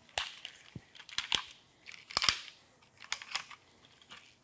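Peak Design Travel Tripod's carbon fibre legs being pulled out and spread: a string of about eight sharp, irregular clicks and snaps from the leg sections and locks, the loudest about a second and two seconds in.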